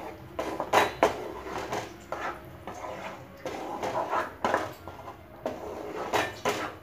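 A spatula stirring thick spinach purée in a non-stick kadhai, scraping and knocking against the pan in irregular strokes. The loudest knocks come about a second in and near the end.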